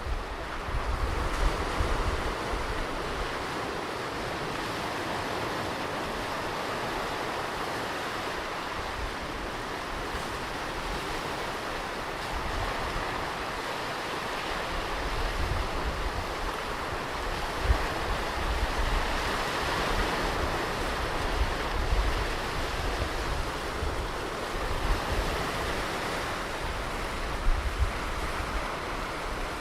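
Ocean surf breaking and washing onto a beach, a continuous rush that swells and eases, with wind buffeting the microphone in low rumbling gusts near the start and again in the second half.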